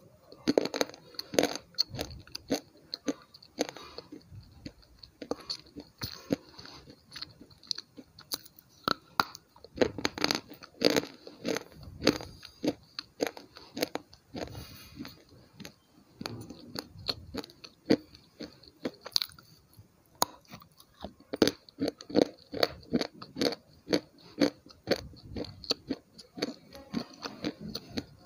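Close-up biting and crunching of a hard item held at the mouth: irregular sharp crunches in quick clusters, with chewing in between and a few short pauses.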